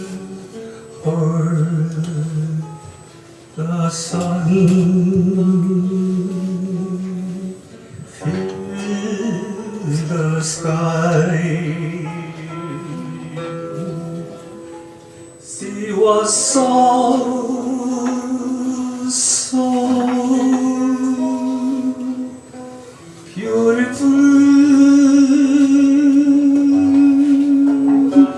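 A singer performing a slow song in long held notes, accompanied by guitar.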